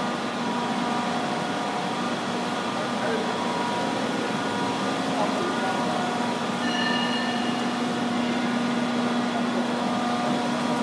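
Large heavy-duty CNC facing lathe running: a steady machine hum with several steady whining tones, and a brief higher-pitched tone about seven seconds in.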